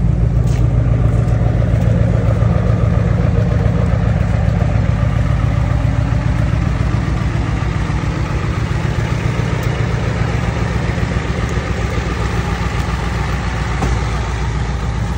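Pickup truck engine idling steadily, a loud low running note that eases a little partway through.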